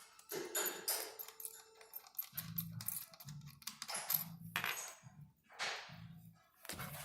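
Small metal parts and tools clinking, tapping and scraping as an embroidery machine head is taken apart. From about a third of the way in, a low hum pulses under it about every 0.7 seconds.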